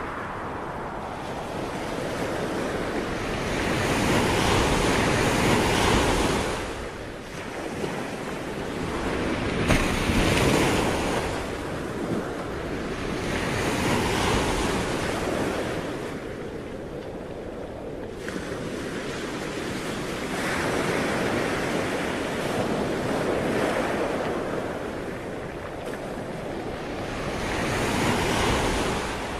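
Sea waves washing in, a rushing noise that swells and fades about every four to six seconds, with some wind on the microphone.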